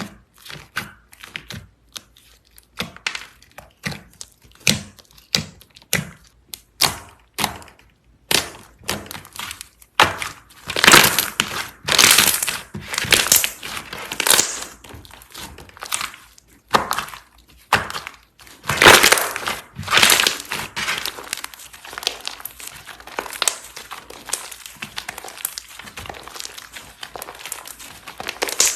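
Slime being squeezed and pressed by hand, crackling and crunching. It starts as a quick run of sharp separate pops, then from about a third of the way in turns to longer, denser crunching squishes.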